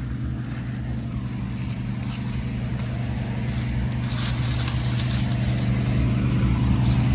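Combine harvester's diesel engine running steadily while harvesting corn, growing gradually louder as it comes nearer, with crackling from the stalks being taken in.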